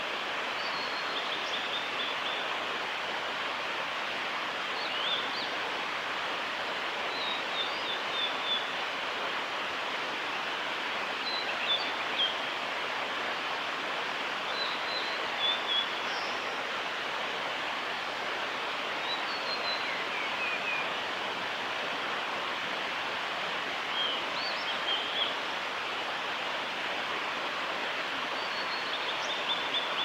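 Male blue-and-white flycatcher singing: short phrases of high whistled notes, repeated every three to four seconds, over a steady rushing hiss.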